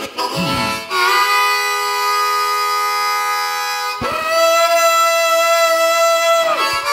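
Blues harmonica played solo and amplified through a microphone, imitating a steam train: after a short bent note, two long held wailing chords like a train whistle, the second starting about four seconds in.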